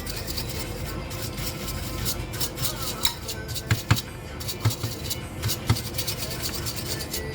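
Irregular clicks and knocks of small hard parts and tools being handled during a hair dryer motor swap, over quiet background music.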